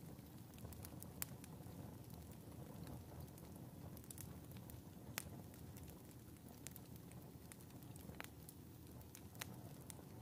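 Wood fire burning in a wood stove: a faint, steady low sound of flames with sparse, irregular sharp crackles and pops.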